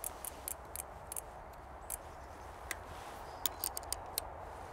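A spanner clicking against a Brompton's rear axle nut as it is worked loose and refitted on the nut, about a dozen small, sharp metallic clicks at irregular intervals over a faint steady background hiss.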